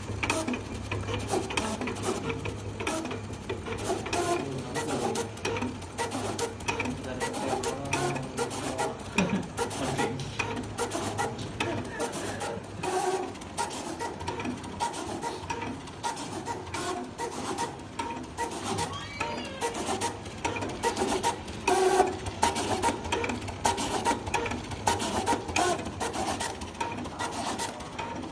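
Automatic decal die-cutting machine running, its cutting head and feed motors moving in a busy, uneven string of clicks and whirs.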